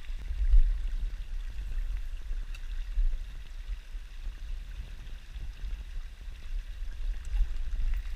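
Small rocky river running over stones and little cascades, a steady rush of water, under an uneven low rumble on the microphone.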